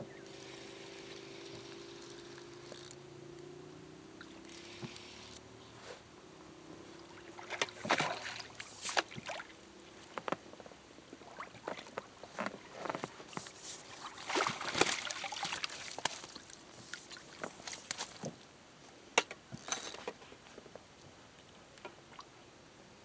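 Water splashing and dripping as a hooked fish is drawn into a landing net and the net is lifted from the lake, with sharp clicks and knocks of the rod and net handling. At the start a faint distant boat engine drones, dropping slightly in pitch and fading out within a few seconds.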